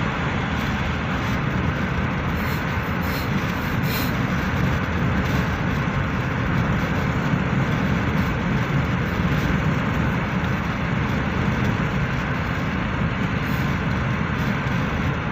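Steady road and engine noise of a moving car, heard from inside its cabin.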